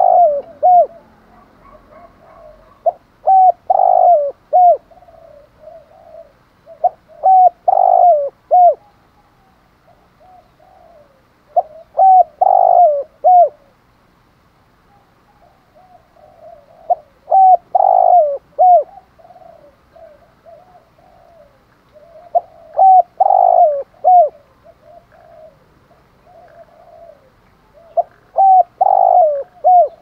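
Spotted dove cooing: seven phrases roughly every four to five seconds, each a quick run of short coos with one stronger note in the middle, with softer cooing between the phrases.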